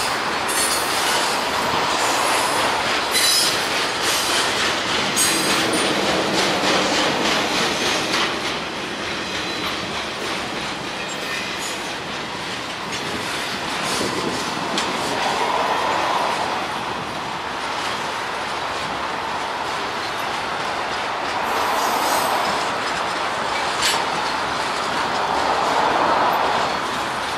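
Norfolk Southern freight train's cars rolling past on the rails, a steady noise with clicks from the wheels, most in the first few seconds, and brief high wheel squeals now and then.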